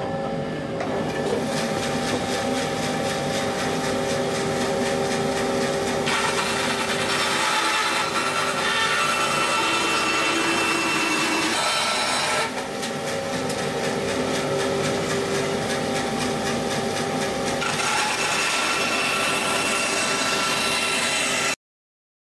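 Bandsaw running and cutting through a wooden centreplate case side, cutting it to length: a steady machine hum with the blade rasping through the timber. The cut eases briefly about twelve seconds in, then carries on, and the sound stops abruptly near the end.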